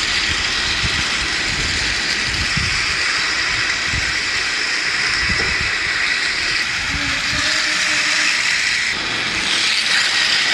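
Battery-powered toy trains running on plastic track: a steady whirring with a high whine from the small motors, over the rattle of plastic wheels on the rails.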